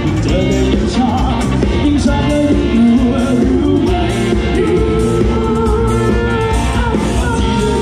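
Live band playing a song: a woman singing into a microphone over a drum kit and electric guitar, loud and continuous.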